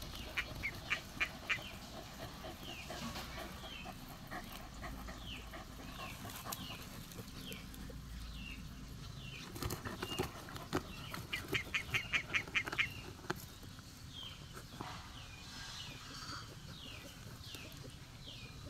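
A dog digging and scratching at loose soil and roots with its front paws, in quick runs of strokes, the longest a little past halfway. Birds chirp around it, with short falling calls scattered throughout.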